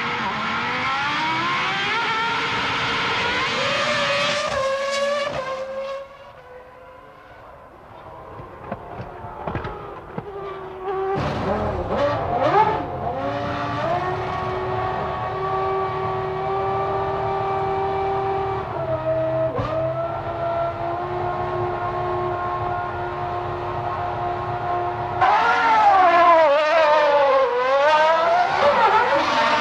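1996 Formula One car engines at high revs. The pitch climbs through the first few seconds, the sound drops away for a few seconds, then holds steady at a high pitch with a few shifts. Near the end it gets louder, with the revs rising and falling quickly.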